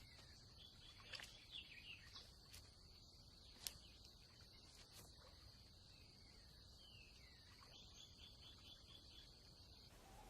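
Very faint marsh ambience: a steady high insect drone, with a few faint bird calls and soft clicks. The drone cuts off near the end.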